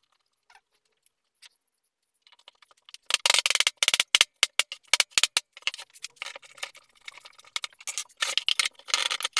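Soft rubber mallet rapping on hardwood: a quick run of sharp knocks starting about three seconds in, with more clusters later, driving glued dovetail pieces into their mortises in a chair-seat frame. The first seconds are near quiet with a few faint clicks.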